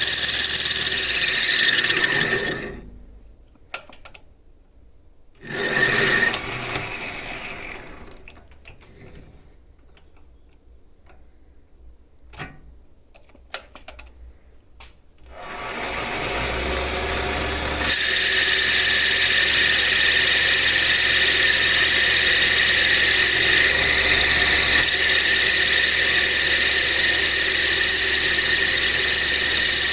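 A power tool running steadily, switched off about three seconds in and briefly run again, then a stretch of small clicks and handling knocks, before it starts up again near the middle and keeps running.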